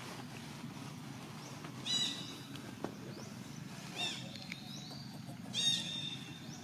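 Monkey giving three short, shrill squealing calls about two seconds apart, the last one the loudest.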